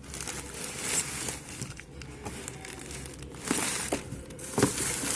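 Plastic packaging crinkling and rustling while toy parts are handled, with a few sharp knocks in the second half.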